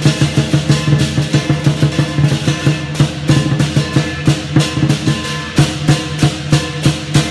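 Loud music with a quick, steady drum beat over sustained pitched notes.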